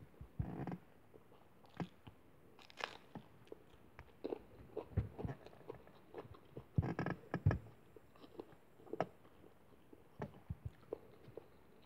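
Close-up eating sounds: crisp crunches of a raw green chili being bitten, amid chewing, in irregular bursts that are loudest about half a second in and around seven seconds in.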